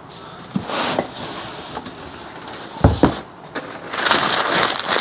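Cardboard shipping box being opened by hand, its flaps rubbing and scraping, with a single heavy thump just before three seconds in and louder rustling of cardboard near the end.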